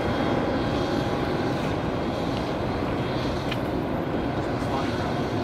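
Steady jet aircraft noise, an even rush with a faint high whine held over it.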